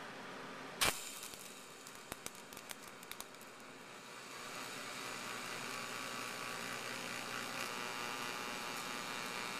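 TIG welding on a steel tube: a sharp click about a second in and a few ticks, then from about four seconds the steady hiss and buzz of the welding arc.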